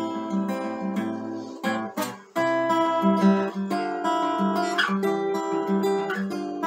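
Acoustic guitar played with chords, the strings picked and strummed and the notes ringing on. About two seconds in the sound briefly drops away, then the playing comes back louder.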